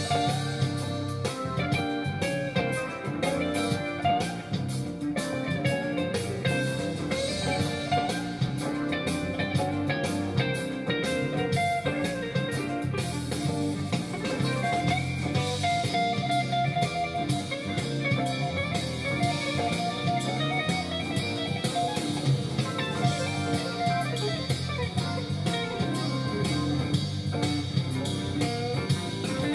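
Live jazz-blues band playing, led by an electric guitar solo on a Les Paul-style solid-body guitar over bass and drum kit.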